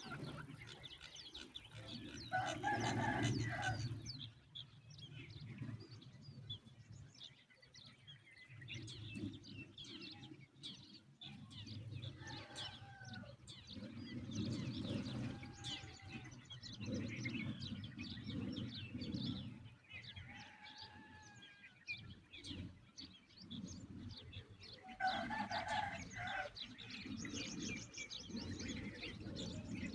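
Birds calling: many short chirps and squeaky calls throughout, with two louder, longer bursts of calling, one about three seconds in and one near the end.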